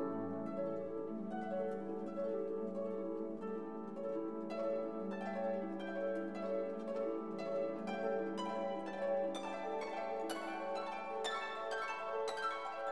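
Background music of plucked-string notes over a held low note.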